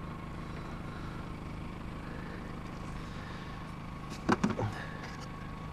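A brief cluster of knocks and rattles about four seconds in as a hand handles a snowblower's engine and housing, over a steady low hum.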